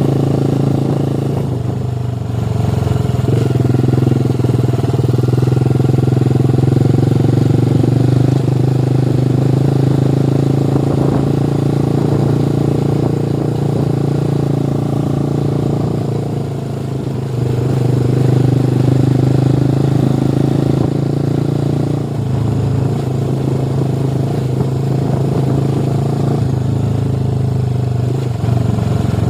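Motorcycle engine running steadily while being ridden, easing off briefly a few times before picking up again.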